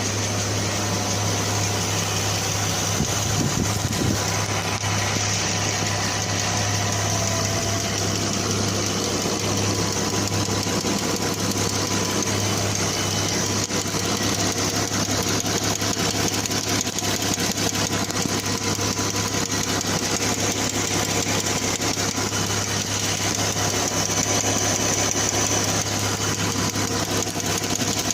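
2014 Jeep Wrangler engine idling steadily with a fast, light, even ticking over it, which the owner suspects is a hydraulic valve lifter tick.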